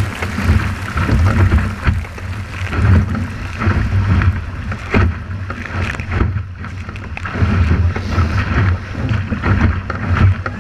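Wind buffeting the microphone of a deck-mounted camera on a small keelboat sailing fast through rough water, over the steady rush of water along the hull. Splashes and spray hits come through now and then.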